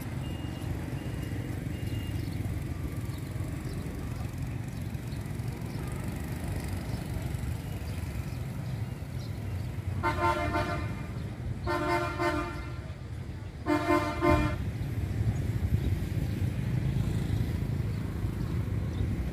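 A vehicle horn honks three times, each blast under a second long and the blasts about a second and a half apart, over a steady low rumble of street traffic.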